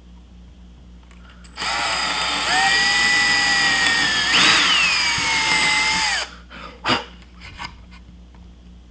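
Ryobi cordless drill boring pilot holes through a soft cedar board: the motor runs for about four and a half seconds with a steady whine, which jumps up in pitch about halfway through and then slowly falls before it stops. A single sharp click follows about a second later.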